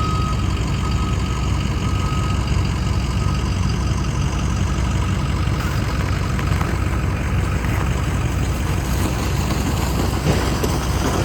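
An engine idling steadily, with a thin steady high tone, like a reversing beeper, dying away in the first two seconds.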